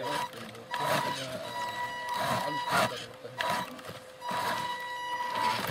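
Radio-controlled scale model truck's electric drive whining in several short spurts as it crawls along, stopping and starting, with clicks and knocks from the model on the track.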